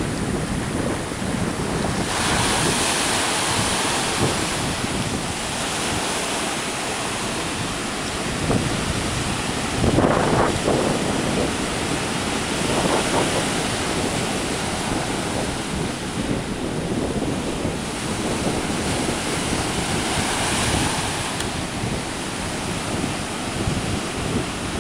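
Ocean surf breaking and washing ashore in a steady rush, with one louder surge about ten seconds in. Wind buffets the microphone.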